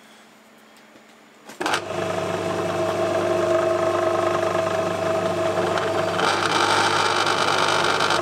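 Metal lathe switched on with a click about a second and a half in. The spindle motor and gearing then run up and keep turning steadily with a constant whine, spinning a brass bar in the three-jaw chuck without cutting. The sound turns harsher about six seconds in.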